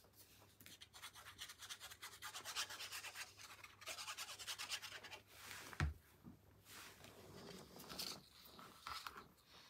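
Glue bottle's applicator tip scraped back and forth over paper in quick strokes, spreading glue. About six seconds in comes a single dull knock, followed by softer rubbing of paper being pressed down by hand.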